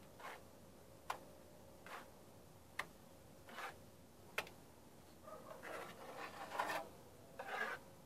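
A steel trowel throws cement mortar onto a concrete-block wall. It is faint: sharp taps come about every one and a half seconds, with softer slaps between them. From about five seconds in there is a longer stretch of scraping and rubbing as the mortar is spread.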